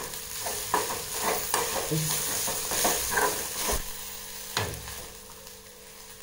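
Grated coconut, dried red chillies and shallots sizzling in coconut oil in a metal kadai, roasting for a ground curry paste, while a steel spoon stirs and scrapes them with repeated knocks against the pan. The stirring eases off about four seconds in, leaving a quieter sizzle and one more knock.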